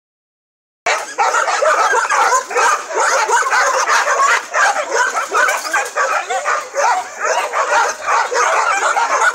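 A chorus of many dogs barking and yelping over one another without a break, starting about a second in.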